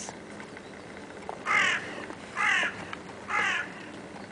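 A crow cawing three times, each caw short, about a second apart.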